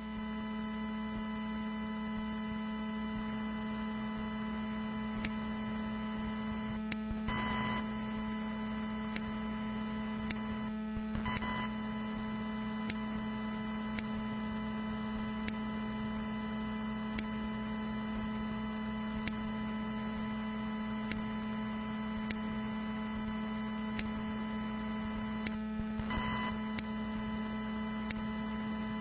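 Steady electrical hum: a low buzzing tone with many steady higher overtones, broken by brief crackles about 7 and 11 seconds in and again near the end.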